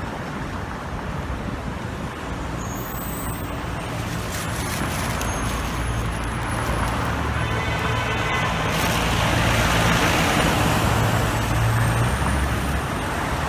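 City street traffic, with a heavy vehicle's engine hum growing louder to a peak about ten seconds in and then easing off as it passes.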